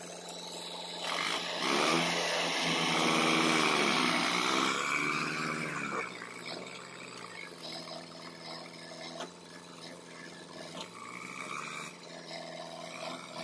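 Tractor diesel engine revving hard under load as it pulls a trolley full of sand through soft ground, its pitch climbing, dipping and climbing again over the first few seconds, then easing off to a steadier, quieter run.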